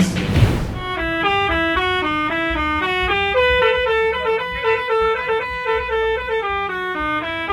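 Bus 'telolet' (basuri) multi-tone musical air horn playing a quick stepping melody of short held notes. It starts about a second in, after a fading noisy crash.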